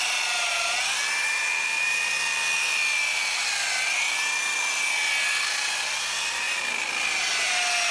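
Electric rotary sander-polisher spinning a soft foam pad with 600-grit paper, wet-sanding a cured epoxy surfboard: a steady high motor whine that dips slightly in pitch twice.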